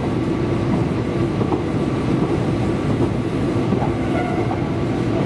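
Electric train running along the line, heard from inside the passenger car: a steady rumble of wheels on rails.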